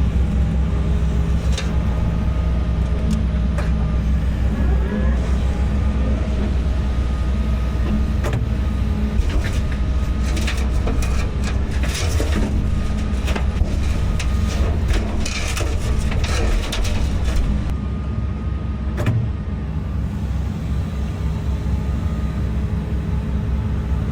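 Heavy construction machine's diesel engine running steadily, with a run of sharp clanks and knocks through the middle.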